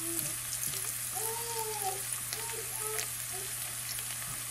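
Chopped garlic and ginger sizzling steadily in hot oil in a nonstick frying pan while a spatula stirs them.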